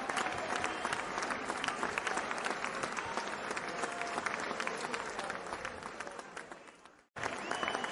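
Crowd applause: many hands clapping in a dense, steady patter. It fades away to a brief silence about seven seconds in, then starts again abruptly at full level.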